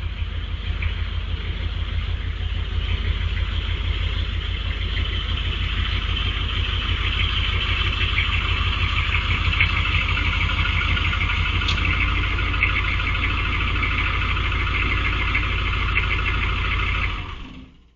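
Older pickup truck's engine running as the truck pulls out and drives off, a steady fast low throb with a rougher, louder note after a few seconds; it fades out near the end.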